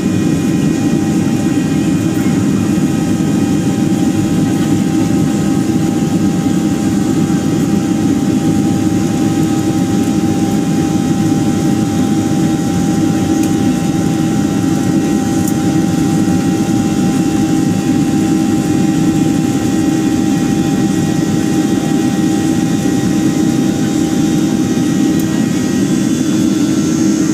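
Jet airliner's engines heard inside the cabin while taxiing: a loud, steady rumble with a constant whine over it.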